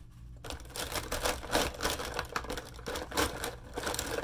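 Plastic felt-tip markers clattering against each other and the bin as a hand stirs and rummages through a bin full of them. A dense, irregular rattle that starts about half a second in.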